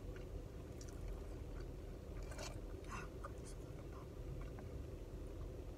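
A person chewing French fries, with soft mouth clicks and small crunches at scattered moments over a steady low hum.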